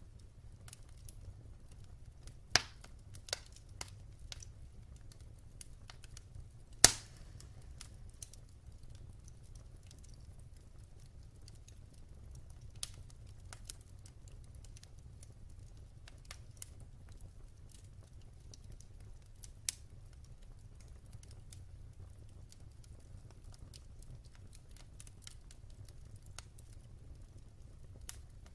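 Wood fire crackling in a fireplace: scattered sharp pops and snaps over a low steady rumble, the loudest pop about seven seconds in.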